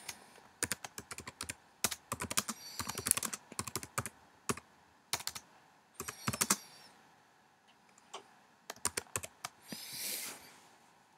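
Typing on a computer keyboard: keystrokes in quick runs with short pauses between them.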